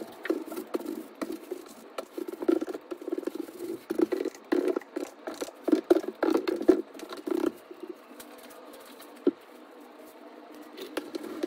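Fingers rubbing and smearing black pigment across a drawing surface: irregular scrubbing strokes with small clicks, which stop after about seven seconds and leave it quieter, broken by a single click.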